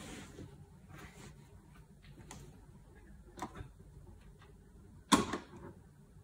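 Cotton shirt fabric rustling as it is smoothed flat by hand on an ironing board, with a few light clicks, then one short sharp knock about five seconds in.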